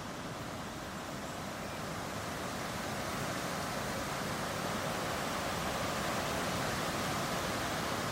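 Strong wind blowing through trees in fresh leaf, the leaves and branches rustling against each other in a gust that swells over several seconds and eases slightly near the end.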